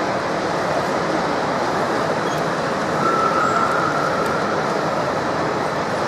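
Steady din of an exhibition hall, with a high whine from a radio-controlled Liebherr 634 crawler loader's hydraulics starting about three seconds in and holding for about two seconds as it works its bucket.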